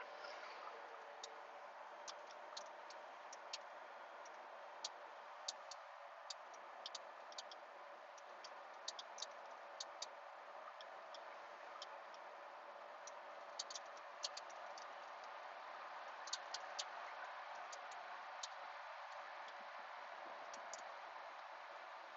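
Faint, steady road and cabin noise inside a 2004 Porsche 911 Turbo Cabriolet driving with its top closed. Many sharp ticks and clicks come at irregular intervals, clustered through the middle of the stretch.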